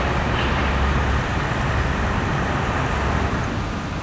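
Road traffic noise: a steady hiss of passing vehicles, with a heavy low rumble that fades about a second in.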